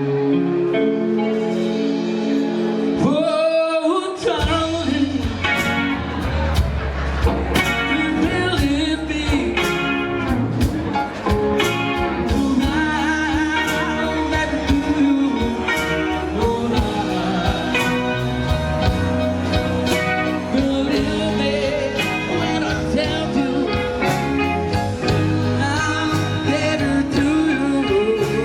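Recorded song with singing over a band with guitar. It opens on held notes, with a sweep in pitch about three seconds in, then the full band and a steady beat come in about four seconds in.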